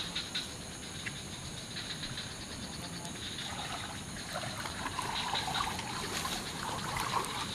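Water trickling and dripping in the rain, a steady wet hiss with faint scattered clicks.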